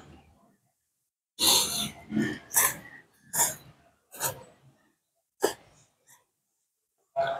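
Noodles being slurped off chopsticks in a string of short, sharp slurps. The loudest comes about a second and a half in, and they thin out and grow fainter after that, with one more near the end.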